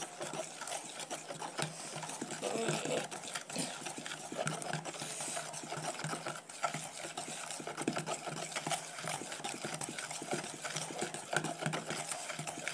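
A spoon stirring thin semolina cake batter in a plastic bowl: rapid, continuous clicking and scraping of the spoon against the bowl as the batter is mixed after the milk goes in.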